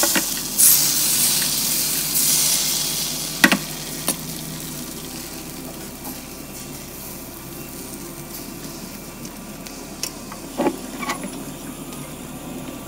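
Thin neer dosa batter of rice flour and coconut sizzling on a hot iron dosa pan as it is ladled on; the sizzle is loudest at first and settles to a steady, quieter hiss after about five seconds. A few light taps of the steel ladle come twice, a few seconds in and again near the end.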